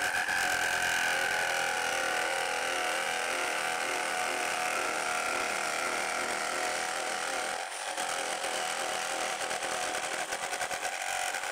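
Bosch GST 65 BE jigsaw running and sawing through solid wood about 1.5 inches thick: a steady buzz of the blade's strokes. It dips briefly about two-thirds of the way through.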